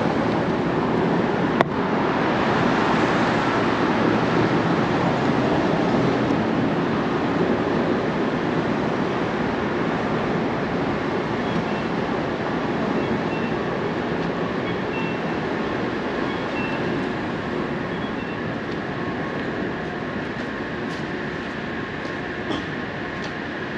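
A steady roar of city street and construction-site noise that slowly fades, with one sharp click about a second and a half in.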